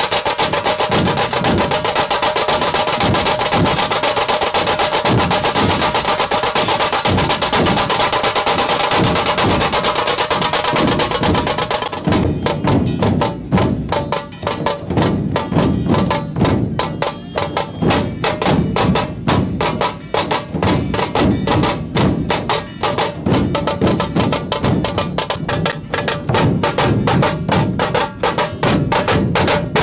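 Dhol-tasha drumming: large barrel dhols beaten in a steady rhythm, under fast, continuous stick strokes on tasha drums. About twelve seconds in, the bright, dense top layer drops away and the deep dhol beats stand out more.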